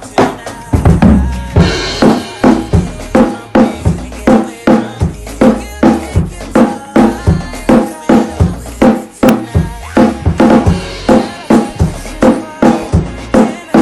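Drum kit played in a steady groove, with sharp snare or rimshot hits about two a second over bass drum. The heavy low bass drum comes in about a second in.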